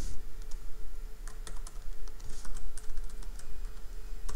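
Computer keyboard typing: irregular keystroke clicks in short runs, over a faint steady hum.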